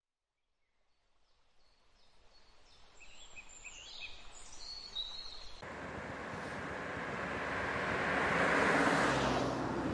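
Birds chirping faintly as the sound fades in. About halfway through it cuts suddenly to road traffic: motor vehicles approaching, with one passing close near the end, its noise swelling and then falling away.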